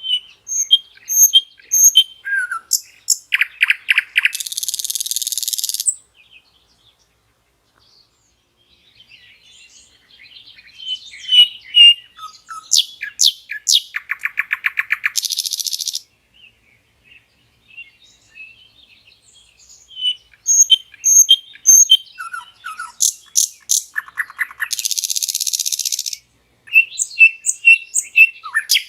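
Common nightingale singing: three long song phrases a few seconds apart, each mixing clear whistled notes and fast repeated trills and ending in a harsh buzzing passage. A fourth phrase starts near the end.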